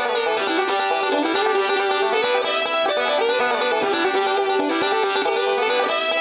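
Outro music: a fast-picked banjo tune in a bluegrass style, playing at a steady level.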